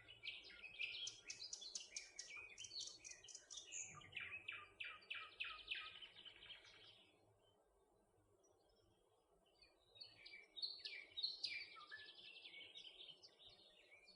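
Faint songbirds chirping and singing in quick trilled phrases, including a run of rapid notes falling in pitch about four seconds in. The singing stops for a couple of seconds in the middle, then the chirping resumes.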